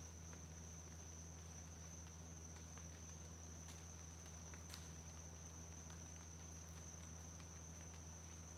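Faint outdoor insect chorus: one steady high-pitched trill without a break. Scattered light ticks and a low steady hum sit underneath.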